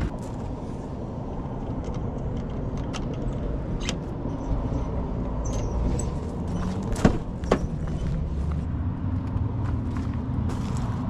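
Steady low outdoor rumble with a few scattered sharp clicks; the two loudest come about seven seconds in, half a second apart, from handling the van's rear door and its lock hardware.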